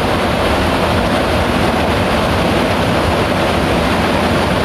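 Mountain river water rushing over boulders in small cascades, a loud, steady, even rush.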